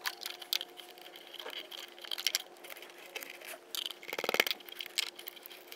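Light clicks and scrapes of hands working plastic parts and a wiring harness loose from a car's plastic airbox, with a brief squeak about four seconds in.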